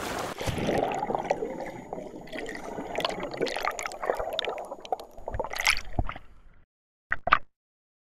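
Underwater bubbling and gurgling water sound effect trailing off after a splash, with scattered bubble pops. It fades out about six and a half seconds in, followed by two short blips.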